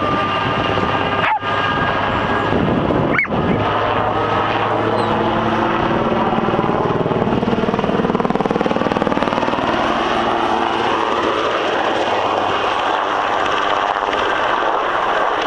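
Coast guard helicopter flying low overhead, its rotor and engine noise loud and steady. Its pitch slides down in the second half as it passes by. The sound cuts out briefly about one and three seconds in.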